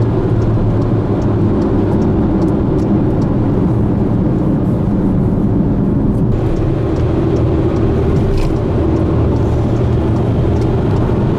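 Steady engine and tyre noise of a moving car, heard from inside the cabin as a constant low drone.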